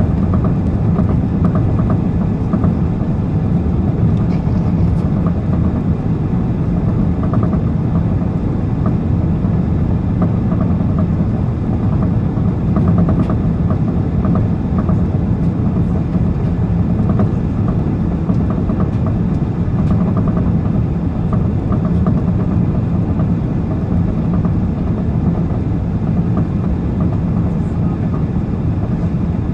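Steady low rumble of an Airbus A380 that holds an even level and pitch throughout, with no rise or fall.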